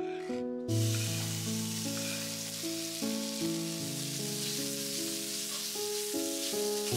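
Slices of pork fat sizzling hard in a hot oiled wok, starting under a second in as they hit the pan, then stirred with a spatula as the fat begins to render into lard. Background music plays throughout.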